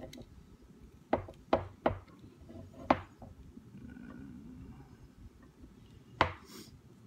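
Sharp knocks and clacks of hard bow parts and tools being handled and set down on a hard work surface: three quick ones, a louder one about a second later, and a last one near the end.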